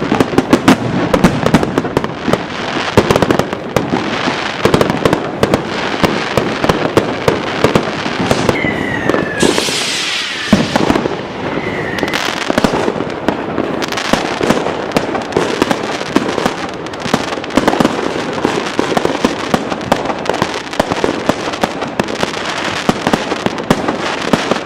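Dense New Year's Eve fireworks: a continuous barrage of overlapping bangs, crackles and firecracker pops from many rockets and cakes going off at once, with a brief falling whistle about nine seconds in.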